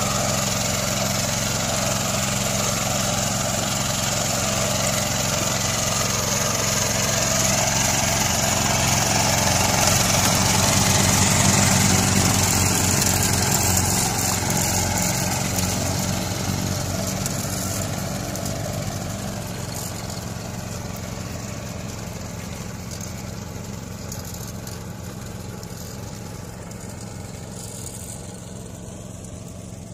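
Yanmar AP4 walk-behind rice transplanter's engine running steadily under way. It grows louder to a peak about twelve seconds in as the machine passes close, then fades away over the second half.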